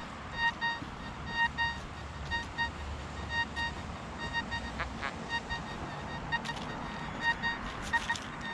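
Metal detector beeping: short tones of one steady mid pitch, repeated in clusters of two or three as the coil sweeps back and forth over a target, here a piece of buried iron.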